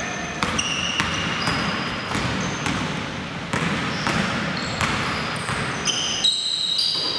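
A basketball bouncing on a hardwood gym floor amid many short, high-pitched sneaker squeaks as players run and cut.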